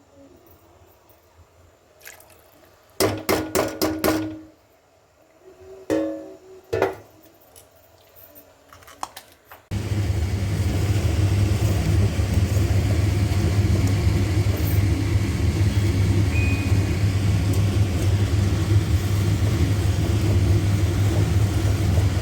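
Kitchen utensils clinking and knocking, with a cluster of sharp ringing metal strikes about three seconds in and a few more a few seconds later. About ten seconds in, an electric mixer grinder starts abruptly and runs steadily and loudly, blending the soup.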